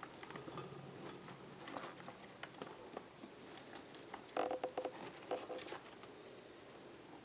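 Small pet rodents scrabbling and rustling in wood-shaving bedding and at a plastic food trough: a steady run of light scratchy clicks. A burst of louder, quick clicking comes about four and a half seconds in.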